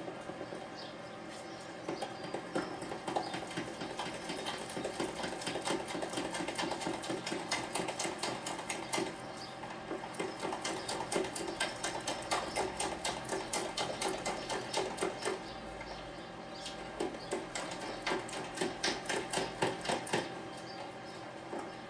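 Thick Yorkshire pudding batter beaten by hand in a plastic jug: a rapid, rhythmic clicking and slapping of the utensil against the jug and through the batter. It eases off briefly about two-thirds of the way through, then picks up again.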